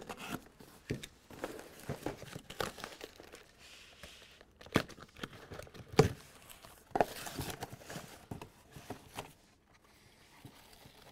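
Cardboard shipping case being pulled open by hand: flaps rustling and crinkling, with scattered clicks and a few sharp knocks, as blister-packed diecast cars on cardboard cards are handled. It grows quieter near the end.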